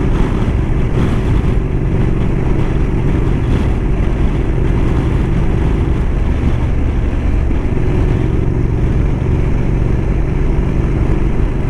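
Motorcycle engine running steadily while the bike is ridden, with continuous wind noise over it.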